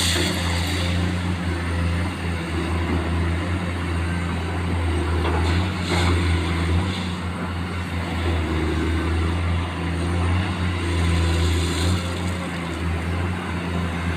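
Komatsu PC210 excavator's diesel engine running steadily under working load, a constant low drone, with a few brief noises from the machine's work near the start and about six seconds in.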